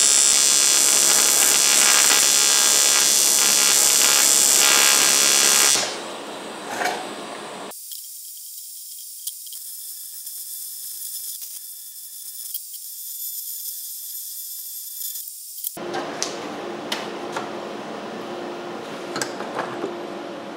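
Electric welding arc on aluminium cooler brackets: a loud, steady buzzing hiss for about six seconds, then after a short break a second, much quieter weld with only a thin high hiss. In the last few seconds the arc has stopped and there are scattered light clicks and knocks from the metal cooler being handled.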